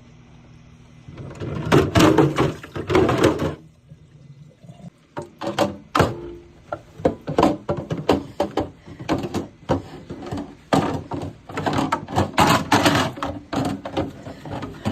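Refrigerator organizer bins being handled and set down while being dried: a dense stretch of clatter starting about a second in, then a long run of separate hard knocks and thunks.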